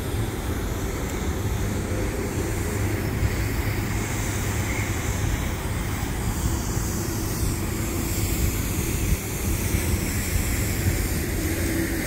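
City street ambience: a tram moving past on street tracks over a steady low traffic rumble.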